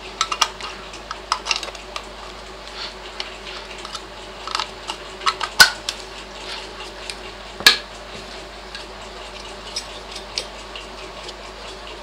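Metal filter-box cover being fitted back onto a Galanz microwave magnetron by hand: scattered light metallic clicks and taps, the two sharpest a little past halfway through.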